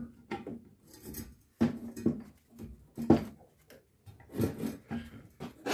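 Handling noise from a gloved hand working around a welded steel motor mount on a lathe: a string of irregular knocks, rubs and scrapes, a few sharper ones among them.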